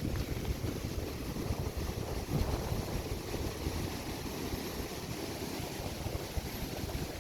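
Sea surf on a beach with wind buffeting the microphone, a choppy low rumble.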